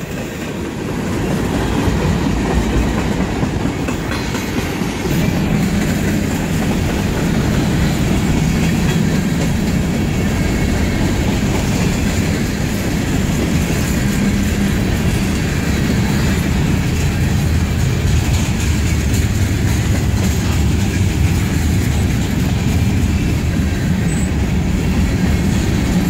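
Freight train's cars rolling past close by, steel wheels running over the rails in a loud, steady rumble.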